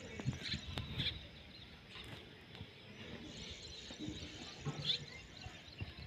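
Indian ringneck parakeet giving a few short, high chirps, spaced out over several seconds, against low background rumble.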